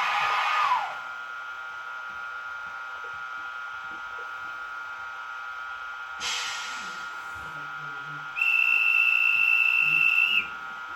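ESU LokSound 4.0 decoder in a Piko model Vectron electric locomotive playing its sound set through the model's small speaker, over a steady electronic whine. A hiss ends about a second in, a short air-release hiss comes about six seconds in, and near the end a two-second horn blast sounds on one high tone.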